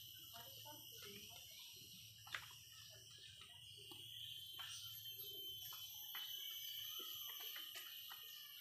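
Faint small birds chirping over a steady high-pitched ringing, with one sharp click about two and a half seconds in.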